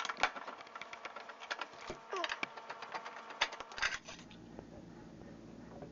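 Small metallic clicks and taps of a hand screwdriver backing out the screws on a dishwasher's lower access panel, coming thick and fast for about four seconds and then easing off.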